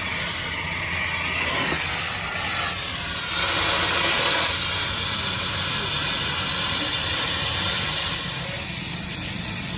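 A steady, loud hiss over a low hum, swelling a little about four seconds in.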